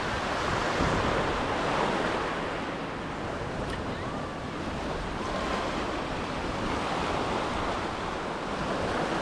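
Small waves washing up and draining back over a rocky, pebbly shore, rising and easing gently, with wind rumbling on the microphone.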